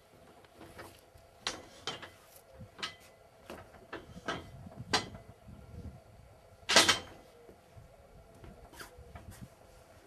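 A string of sharp clicks and knocks from a horse trailer's main divider being fitted back in place and latched, the loudest knock a little under seven seconds in.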